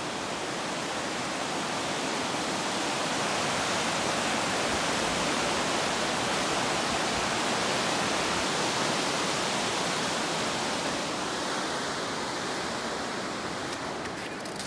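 Steady rush of flowing water from a nearby waterfall or creek, growing a little louder through the middle and easing off near the end.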